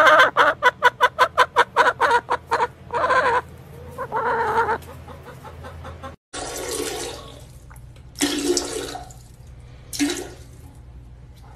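A hen clucking rapidly and close up, about six clucks a second, then a few longer, louder calls. After a cut, a short rush of water like a toilet flushing, and a cat meowing twice.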